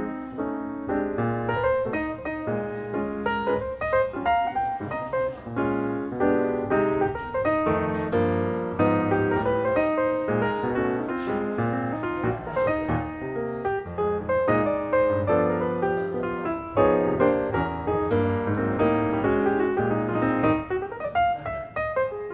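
Piano music playing throughout, a steady flow of notes.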